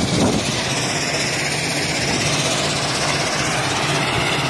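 Stone-crushing plant running with a steady mechanical drone from its crusher and conveyor belts, mixed with diesel engine noise.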